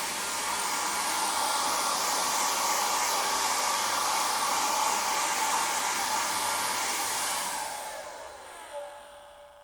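Handheld hair dryer blowing steadily, an airy rush with a motor whine. About seven and a half seconds in it is switched off and the whine falls in pitch as the motor spins down, fading almost to nothing.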